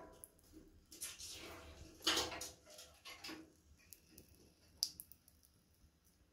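A few soft rustles and knocks of movement around a ceramic bathroom sink, the loudest about two seconds in, with a short sharp click near five seconds.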